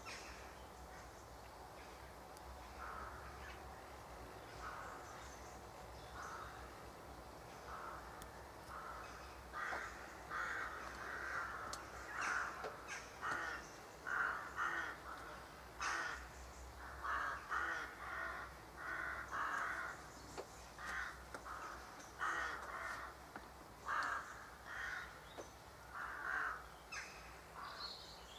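Crows cawing in a tree, repeated harsh caws that start sparse and faint and become louder and more frequent about a third of the way in.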